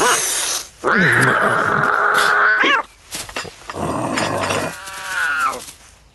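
Two drawn-out, strained cartoon vocal cries. The first is long and held and ends in a quick rising squeal; the second is shorter and its pitch falls away.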